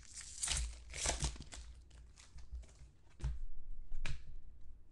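Foil wrapper of a football trading-card pack crinkling and tearing as it is pulled open by hand, in a few crackling bursts during the first second and a half. Two short sharp thumps follow near the end.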